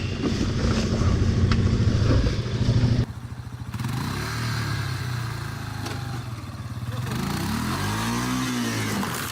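Off-road vehicle engines running: one loud engine for about three seconds, then a sudden cut to a quieter engine that revs up and back down near the end.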